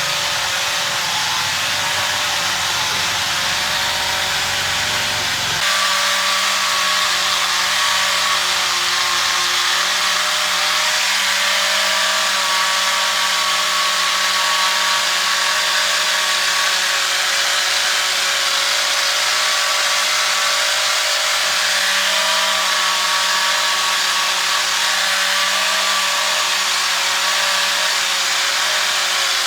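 A power tool running steadily without a break, with a slight change in its tone about six seconds in.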